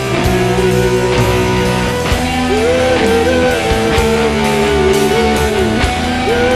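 Progressive rock band playing live: electric guitar, bass guitar and drums. A lead line with bending, wavering notes comes in about two and a half seconds in.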